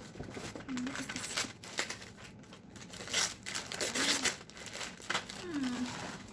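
Paper gift wrap and a paper gift bag rustling and crinkling as a gift is pulled out and unwrapped, in irregular bursts that are loudest a little past the middle.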